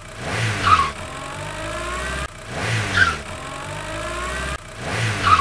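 Car engine sound effect revving up and then holding. It plays three times over, about every two and a half seconds, and each rise ends in a brief sharp peak.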